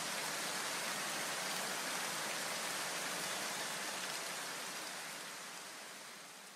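A steady, even hiss that fades away over the last two seconds.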